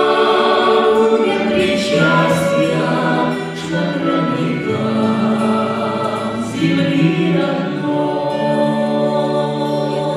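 A Russian folk-style song performed live: a woman singing long held notes into a microphone, accompanied by acoustic guitar and violin.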